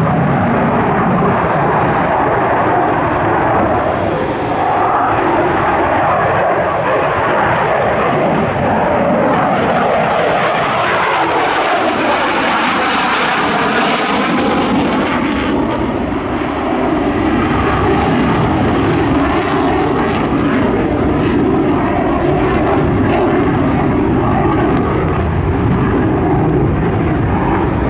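Saab JAS 39 Gripen's Volvo RM12 jet engine roaring during a flight display pass. The sound sweeps down in pitch and its high hiss peaks about halfway through, then cuts off sharply, as the jet passes the microphone.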